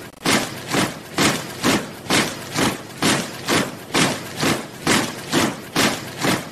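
Soldiers marching in step, their boots striking the ground together in a steady rhythm of about two steps a second.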